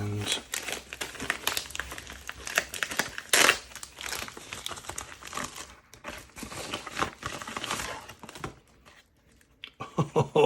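Packaging crinkling and rustling by hand as an item is unwrapped: a dense, irregular run of crackles with one louder crackle about three and a half seconds in, stopping about eight and a half seconds in.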